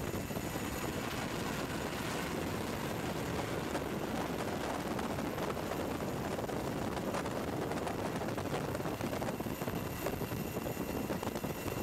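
Steady aircraft engine noise, a continuous rushing hum with no clear pitch, growing rougher and more uneven in the last few seconds.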